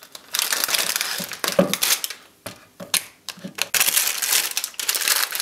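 Plastic food wrappers crinkling and crackling as they are handled: an ice-cream sandwich wrapper and then the plastic Tim Tam biscuit packet. The crackling comes in dense, irregular spells with two short pauses midway.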